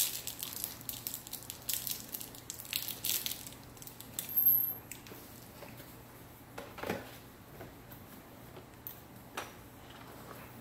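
Handling of plastic vacuum-cleaner parts and packaging: rustling and quick light clicks, a sharper clatter about four and a half seconds in, then a few scattered knocks.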